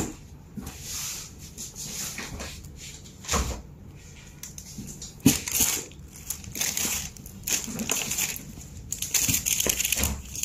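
Tissue paper and packing cloth rustling and crinkling in a cardboard shoebox as a sneaker is handled and turned over, with a couple of soft thumps. The loudest thump comes about five seconds in.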